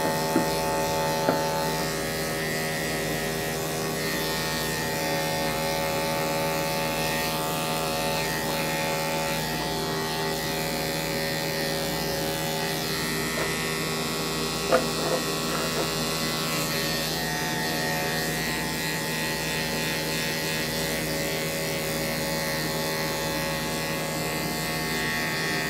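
Corded electric dog grooming clippers running with a steady buzz, shearing through a matted coat. A few brief, sharp sounds stand out in the first second or so and once about fifteen seconds in.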